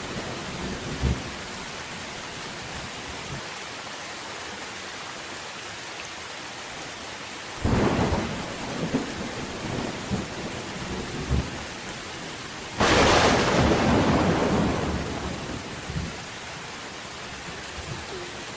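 Steady rain falling with thunder: a sharp clap about eight seconds in, then a louder crack about thirteen seconds in that rumbles away over a couple of seconds.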